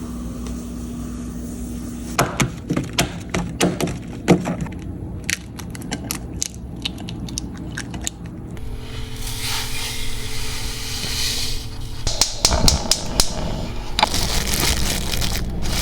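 Kitchen baking sounds: a run of sharp clicks and taps, like utensils and containers being handled, broken by two stretches of a steady hiss.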